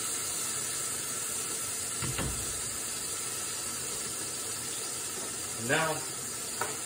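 Burger patty sizzling steadily in a frying pan, with one soft knock about two seconds in.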